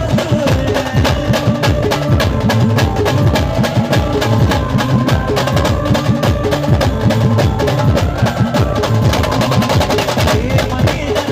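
A band playing an instrumental interlude: fast, busy drumming with booming low drum hits under a sustained melody line.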